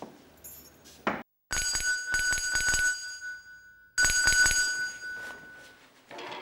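Brass servants' bell jangling rapidly, rung from a bell-pull: two bursts of quick strikes about a second apart, each leaving a ringing tone that fades. A short knock comes just before the first burst.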